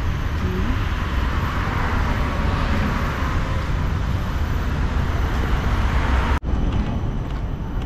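Steady city street traffic noise from passing road vehicles, with a heavy low rumble. The sound cuts out for an instant about six and a half seconds in, then carries on the same.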